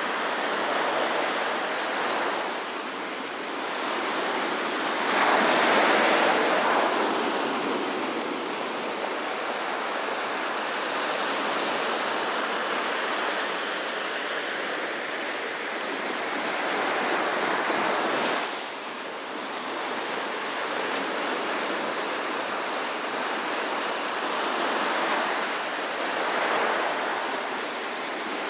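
Small ocean waves breaking and washing up a sandy beach: a continuous wash of surf that swells with each breaker, loudest about five seconds in, and again past the middle and near the end.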